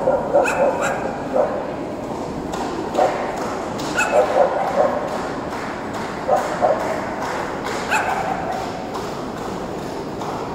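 A dog barking in short, sharp yaps that come in clusters every second or two, over the murmur of a crowd.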